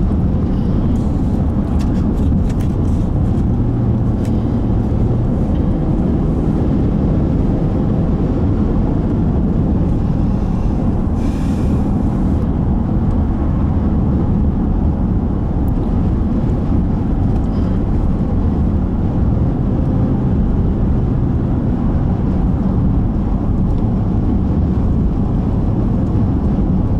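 Steady engine and tyre rumble of a car driving at highway speed, heard inside the cabin. There is a brief rise of hiss about eleven seconds in.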